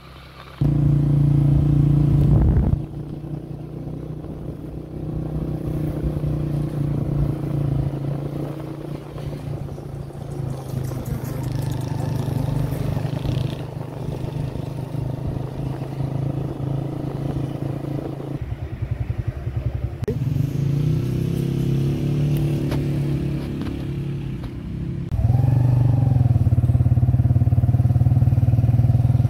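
Motorcycle engine running steadily as the bike is ridden. Its sound gets suddenly louder about half a second in, eases off after a few seconds, and grows louder again near the end.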